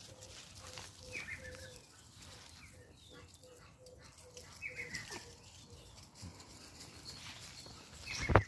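Pomeranian puppies giving short, high whimpers that fall in pitch, three times a few seconds apart, over faint rustling on the grass. A loud, sudden sound comes near the end.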